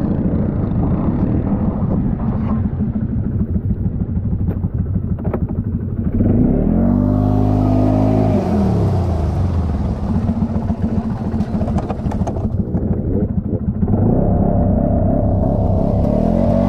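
Four-wheeler (ATV) engine chugging at low revs, then revved up and held twice, about six seconds in and again near the end, the pitch rising and falling each time.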